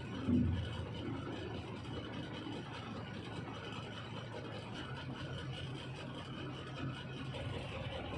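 Truck engine idling steadily, with one short low thud about a third of a second in.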